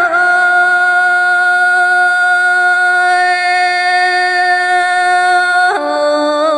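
A woman singing a Dao folk song in the hát lượn style. She holds one long, steady vowel for more than five seconds, then steps down to lower notes near the end.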